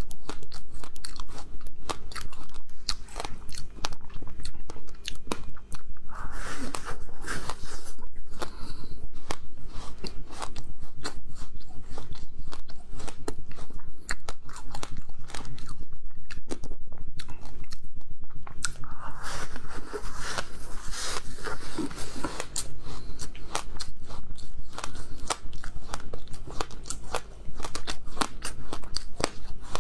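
Close-miked biting and chewing of frozen fruit ice: a dense, continuous run of sharp cracks and crunches as the brittle slab is bitten off and chewed.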